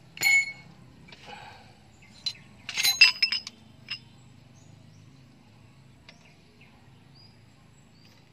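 Sharp metal-on-metal strikes that ring, from hand tools working on a wheel hub assembly: one strike just after the start, then a quick cluster of several about three seconds in, followed by a few faint ticks. A low steady hum sits underneath.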